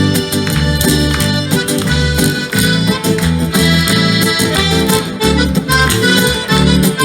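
Instrumental break in a live song: an accordion plays the melody over guitar and a steady pulsing bass.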